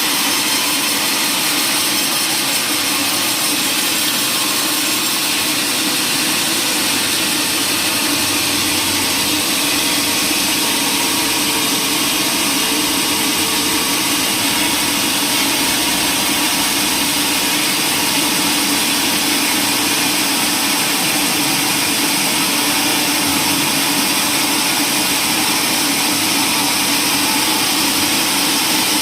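Sawmill machinery running steadily, a constant, even mechanical noise with a low hum that does not change.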